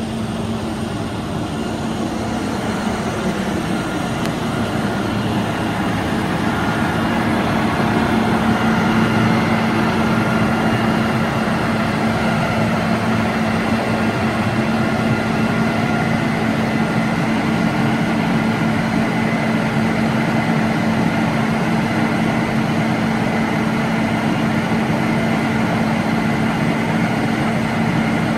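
Truck-mounted Hiab knuckle-boom crane at work: the truck's diesel engine running steadily to drive the crane's hydraulics, a continuous droning hum that grows a little louder over the first several seconds and then holds steady.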